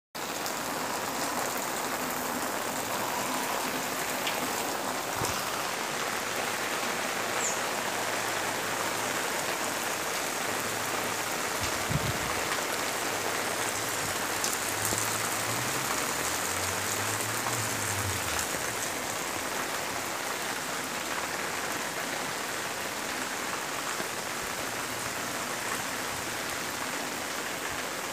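Steady rain falling, with muddy runoff water streaming along the ground.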